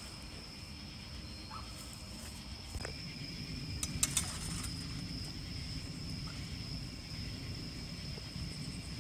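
Night-time outdoor ambience: a steady high-pitched insect drone, with a low rumbling noise that grows from about three seconds in and a few sharp clicks around four seconds in.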